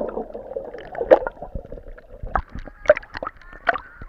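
Seawater gurgling and sloshing against a waterproof camera as it goes under and back up at the surface, with about five sharp knocks and splashes.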